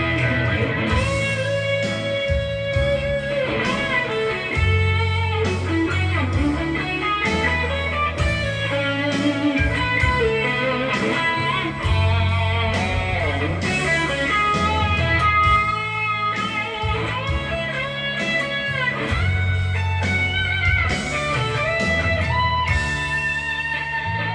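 Blues-rock electric guitar music: a lead guitar line with bent notes over a bass line and a beat.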